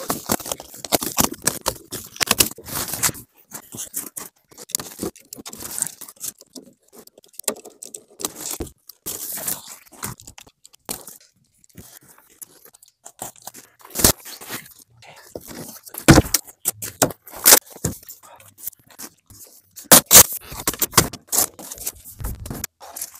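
Plastic stretch wrap being cut, torn and pulled off a pallet of boxed solar panels, with cardboard packaging scraped and handled. It is an irregular run of tearing, crinkling and scraping noises, with a few louder sharp cracks in the second half.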